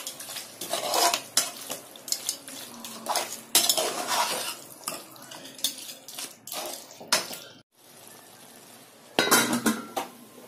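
Spatula stirring and scraping chicken curry in an aluminium pot, with repeated scrapes and knocks against the metal. Near the end an aluminium lid clatters down onto the pot.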